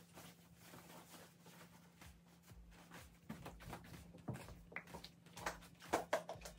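Rustling and light knocks as someone handles a dark cloth and moves about the room, with a few sharper clicks and knocks in the last two seconds. A faint steady hum runs underneath.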